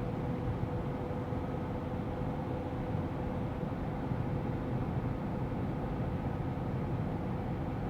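Steady engine and road noise heard inside the cabin of a GAZ Sobol van driving along the highway, with a faint steady whine running through it.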